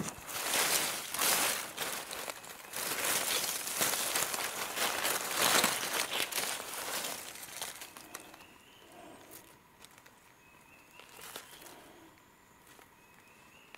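Dry leaf litter and feathers rustling and crackling as a bird's body is moved and handled on the ground. The rustling is loud for about the first seven seconds, then dies down to quiet, with a few faint short rising chirps.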